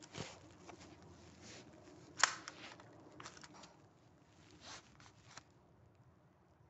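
Colt-style BB pistol being handled close to the microphone: rubbing against hands and fingers, with a few light clicks and one sharper click about two seconds in.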